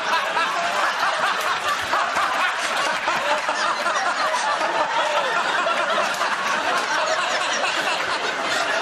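Studio audience laughing, loud and sustained, in response to a punchline.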